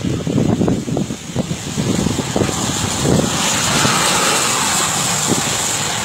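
Boeing 737 airliner rolling past close by on its landing roll, nose down without its nose wheel. A broad rushing jet roar builds about three seconds in and holds. Before that there are irregular low rumbling thumps.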